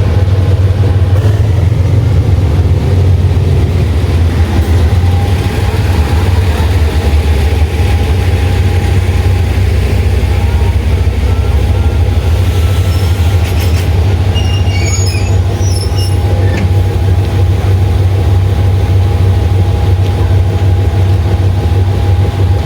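Diesel train passing close by on the line, a loud, steady low rumble of the locomotive and carriages.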